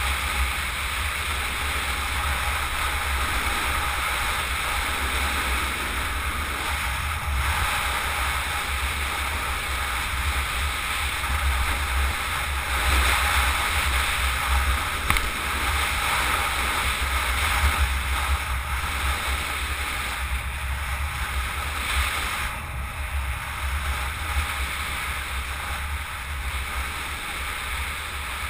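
Steady wind rushing and buffeting over a helmet-mounted camera at speed on a road descent: a deep rumble with a hiss over it, and no engine note.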